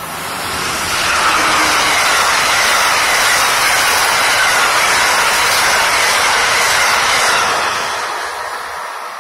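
Amtrak electric passenger train passing at speed: a rush of wheel and air noise that builds over the first second, holds steady, then fades near the end.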